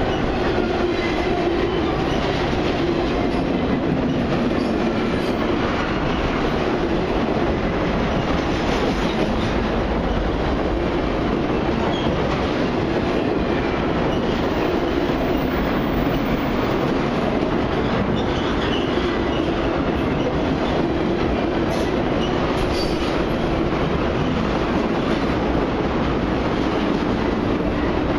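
Freight cars of a long mixed freight train rolling past close by: steady noise of steel wheels running on the rails.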